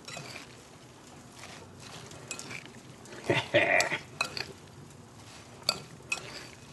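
A spoon tossing coleslaw of shredded red cabbage and cucumber in dressing in a bowl: soft wet stirring with several sharp clinks of the spoon against the bowl. A louder brief sound comes about three and a half seconds in.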